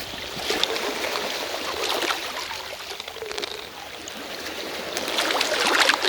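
Water splashing and trickling, a dense run of small splashes that swells in waves and grows louder near the end.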